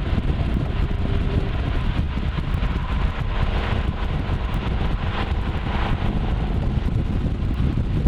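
Ford Mustang Shelby GT500's supercharged V8 running while the car drives along, a steady low rumble with road and wind noise on the microphone.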